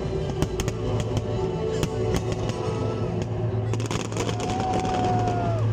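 Fireworks display going off: a run of sharp bangs and crackles, thickest near the end, over loud music. A long held tone sounds through the last second or so.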